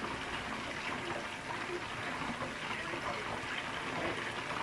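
Whole chicken deep-frying in a pan of hot oil: a steady sizzle with dense bubbling crackle.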